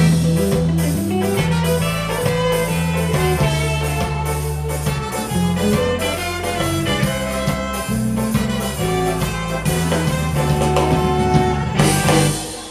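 Live ska-jazz band playing the closing bars of a song: a horn section of saxophones, trumpet and trombone over guitar, keyboards, bass and drums, with a steady moving bass line. The song ends on a final loud hit about twelve seconds in.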